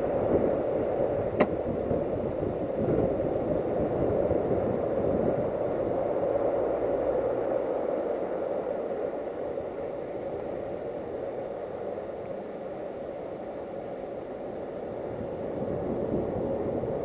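Freight train wagons rolling away over the rails, a steady rumble with a hum that slowly fades in the second half as the train recedes. A single sharp click comes about a second and a half in.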